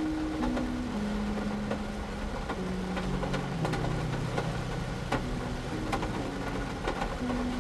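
Slow, low sustained notes of background music that step from one pitch to the next every second or so, over a steady hiss with scattered faint clicks.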